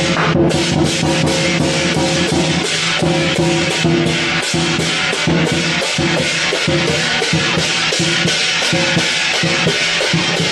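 Lion dance percussion: a Chinese drum beating with clashing cymbals on a fast, steady beat.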